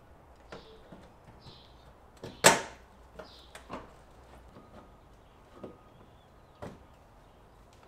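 Scattered sharp clicks and knocks of hands and tools working at an SUV's front wheel arch. The loudest is a single sharp snap about two and a half seconds in, with fainter knocks after it.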